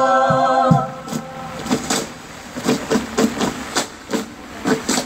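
A cappella choir holding a sustained chord with low rhythmic pulses beneath it, stopping under a second in. Then a quieter stretch of irregular sharp taps and clicks over a steady hiss.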